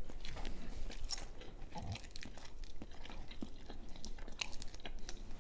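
Cooked shellfish shell being cracked and peeled apart by hand close to the microphone: quick, irregular crackles and clicks.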